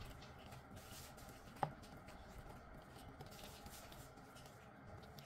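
Faint scraping and squishing of a fork working butter, flour and cornstarch into a stiff cookie dough in a bowl, with one sharp click about one and a half seconds in.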